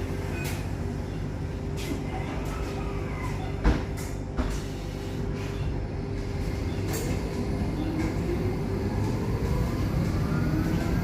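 A public-transport vehicle running, with a steady rumble and hum and a few sharp clicks and knocks. Near the end a whine begins to rise, as from an electric drive picking up speed.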